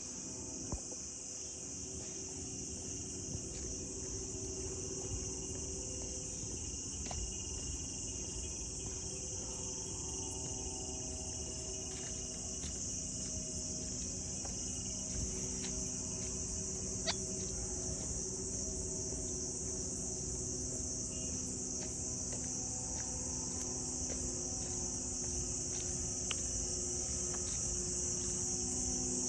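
Steady, high-pitched insect chorus, with a few faint clicks scattered through it.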